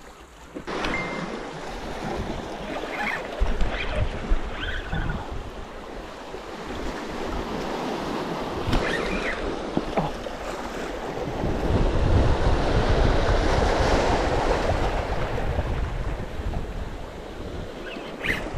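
Sea waves washing and surging over shoreline rocks, with wind buffeting the microphone. The surf grows louder past the middle.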